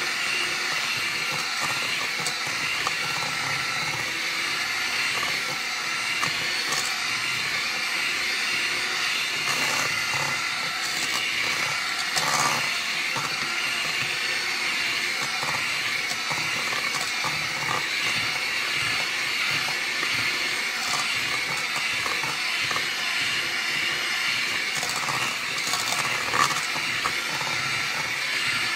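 Electric hand mixer running steadily, its beaters creaming butter and sugar in a stainless steel bowl, with a few brief clicks along the way.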